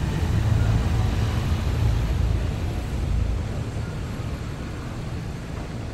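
Steady low rumble of city traffic with a constant hiss, a little louder in the first half and easing slightly later.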